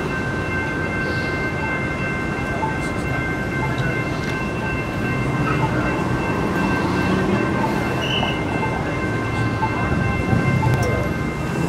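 Light-rail train running: a steady rumble with a thin, steady high whine held over it.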